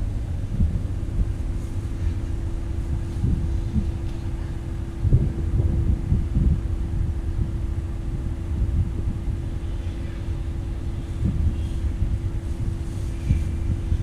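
Moving vehicle: a steady low rumble with irregular wind buffeting on the microphone and a constant low hum.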